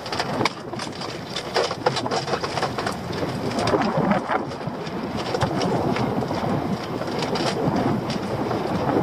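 Wind buffeting the microphone and water slapping against a small open boat, with scattered sharp knocks and rattles from a netted lobster pot being handled on the gunwale.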